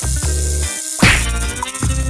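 Background music with a steady, repeating bass line, cut about halfway through by a sudden loud noisy burst sound effect.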